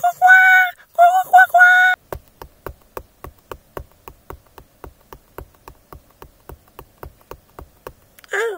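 A high-pitched cartoon voice crying out in three short bursts, then a fast, even run of sharp taps, about five a second, for some six seconds, and a brief high cry near the end.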